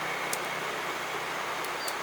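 Steady outdoor countryside background hiss with a thin, high, steady insect-like tone, a few short high bird chirps, and two sharp clicks, one early and one near the end.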